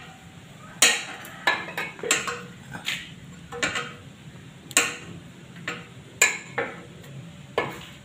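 Metal hand tools clinking and tapping against a steel chassis frame and wiring terminals: about ten sharp, irregular clicks and clinks, roughly one a second, a few of them louder.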